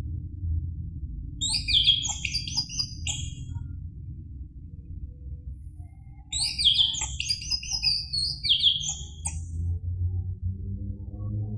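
Orange-headed thrush singing two quick, varied phrases of rapid rising and falling whistles, a few seconds apart, over a steady low hum.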